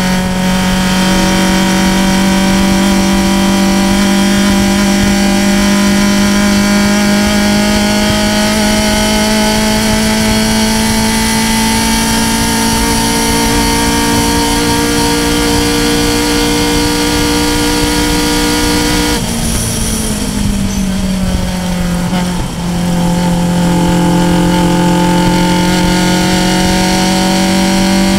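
Race car engine heard from the open cockpit, pulling hard with its note climbing slowly toward about 7,000 rpm. About two-thirds of the way through the note drops sharply and runs lower and unevenly for a few seconds as the car slows, then climbs again.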